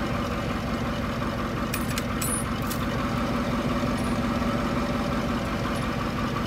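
A large engine idling steadily, with a few faint clicks about two seconds in.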